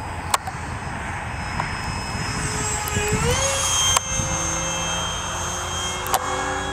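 RC model airplane's motor whining steadily; its pitch rises about three seconds in, then holds. There are a few sharp clicks.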